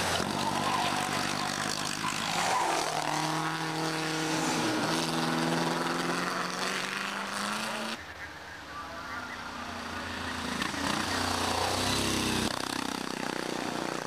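Vintage racing car engines passing at speed one after another, their pitch rising and falling as each goes by. The sound changes abruptly about eight seconds in, to more cars approaching with a deep rumble.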